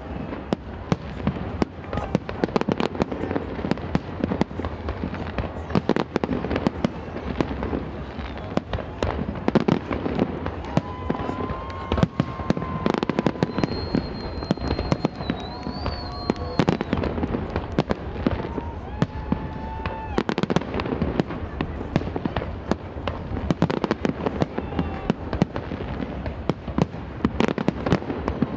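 Aerial fireworks display: a dense, continuous run of shell bursts, bangs and crackling. About halfway through, a steady high whistle sounds over the bangs for several seconds.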